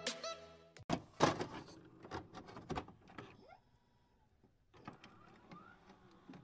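Intro animation sound effects: the music fades out, then a scatter of faint sharp clicks and swishes, with a couple of short rising whirs.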